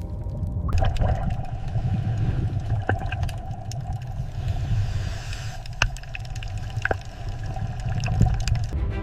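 Underwater water noise: a steady low rumble with bubbling and scattered sharp clicks.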